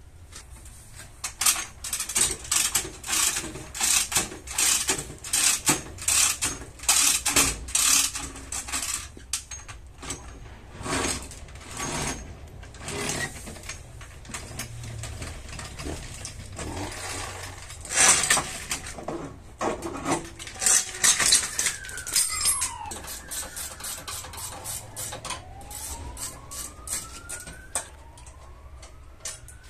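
Steel chain and hook clanking and rattling against metal, many sharp strokes in quick succession that thin out after about twenty seconds. In the last third, a faint wailing tone slides down and back up in pitch.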